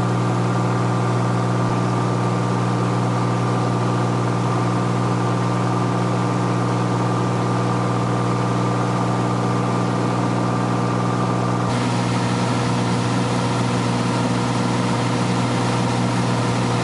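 Cessna 182S light aircraft's six-cylinder Lycoming piston engine and propeller running at a steady, unchanging pitch, with a rushing hiss over it that changes character about twelve seconds in.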